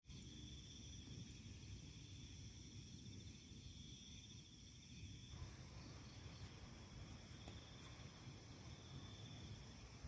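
Faint, steady chirring of night insects, over a low rumble of wind.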